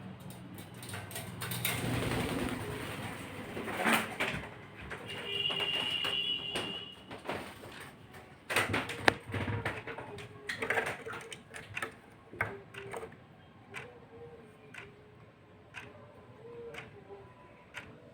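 Pet parrots calling softly, with a short steady whistle about five seconds in, amid many small clicks and taps.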